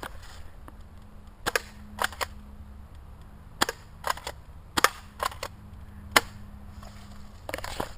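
Airsoft Mossberg M590 pump shotgun being pumped and fired again and again: about a dozen sharp clacks, several in quick pairs, with a quick cluster near the end.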